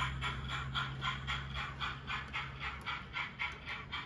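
Simulated steam exhaust from a model BR Standard Class 4MT locomotive's sound system, a steady chuff about five times a second. Under it a low hum of the train running on the track fades out about two to three seconds in.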